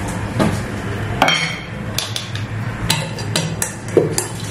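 Several sharp, irregularly spaced clinks and knocks of metal kitchenware, like a spoon tapping a steel grinder jar, over a low steady hum.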